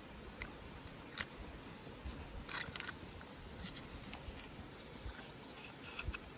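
Small spring-loaded scissors from a Victorinox Swiss Card Lite being handled and worked: scattered light plastic-and-metal clicks and short scrapes, with a sharp click about a second in and denser clusters in the second half.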